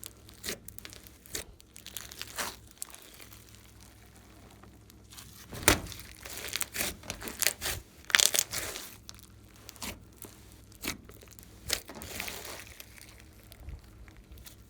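Glossy slime being squished and stretched by hand, giving irregular sticky crackles and clicks, loudest around the middle.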